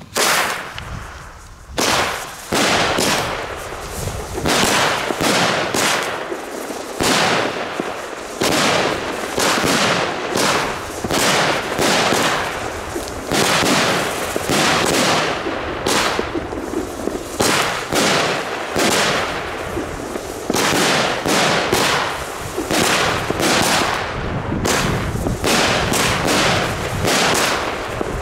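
Xplode Green Fingers firework battery (a 30-shot, 25 mm cake) firing, starting about two seconds in: a steady run of launches and bursts, roughly one a second.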